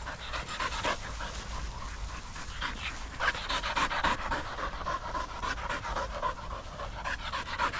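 Dog panting, a run of quick repeated breaths, over a low rumble of wind on the microphone.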